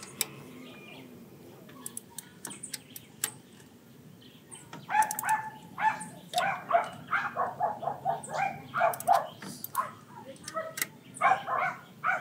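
A small dog barking in quick runs of short yaps from about five seconds in, with a second run near the end. Before that, a few faint clicks from the torque wrench on the intake manifold nuts.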